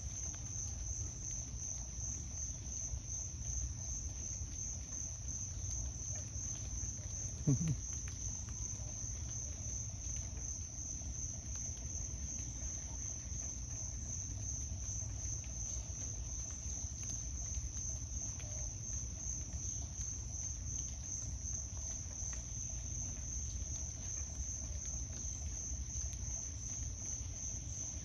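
Insect chorus: a steady, high-pitched pulsing trill, with a low rumble underneath and one brief low sound about seven and a half seconds in.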